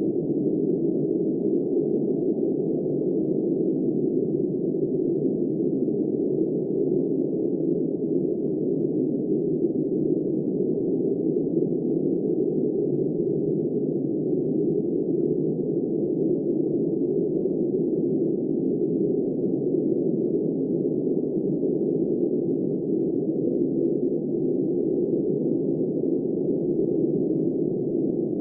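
Blizzard wind blowing steadily: a dull, low rush of noise with no high hiss, even in level with no gusts or breaks.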